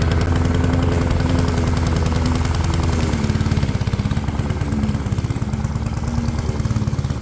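Walk-behind gas lawn mower's small engine running steadily as the mower is pushed across the grass; its low running sound thins a little about three seconds in as it moves off.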